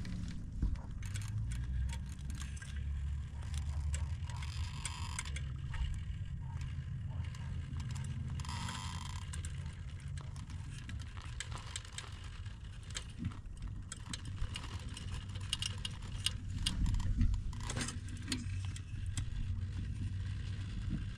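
Speedy OAA RC rock crawler working its way over rock: the electric motor and geared VFD twin transmission run with a low whir, while the tyres and chassis give many small clicks and scrapes against the rock.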